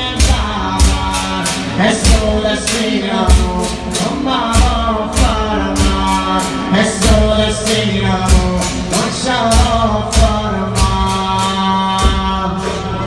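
Bottari band playing pastellessa music: large wooden barrels beaten as drums in a driving rhythm of strikes, about three a second, with singing over it.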